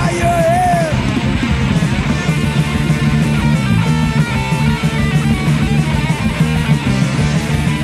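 Thrash metal music: distorted electric guitars riffing hard over a busy drum beat, with a short bending high note in the first second.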